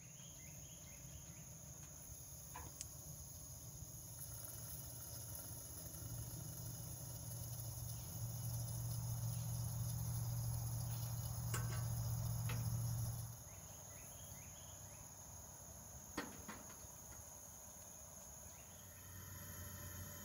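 Vintage Coleman 425E white-gas camp stove burner lit and burning with a low rushing sound that grows louder, then drops abruptly about 13 seconds in. Insects chirr steadily behind it, with a few sharp metallic clicks.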